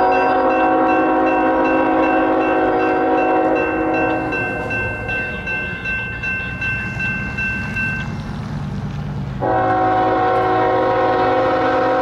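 Diesel locomotive air horn sounding two long blasts of about four seconds each, several steady tones together. Between the blasts the locomotive's low rumble carries on, with a thin high whine that fades out partway through the gap.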